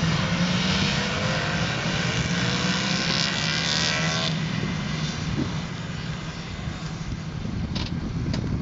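Kawasaki 750 H2 two-stroke three-cylinder motorcycles riding past in a group, their engine note falling in pitch as they go by. About four seconds in, the sound drops to a quieter, more distant engine drone.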